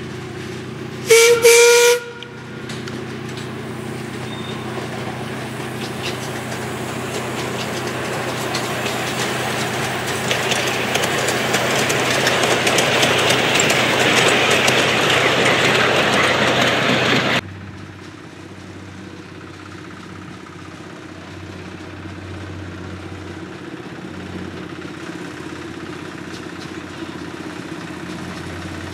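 A miniature railway locomotive's whistle sounds once, for about a second. The train's running rumble, with light rail clicks, then builds up as it approaches and is loudest just before it cuts off suddenly about two-thirds of the way through. A quieter steady low hum follows.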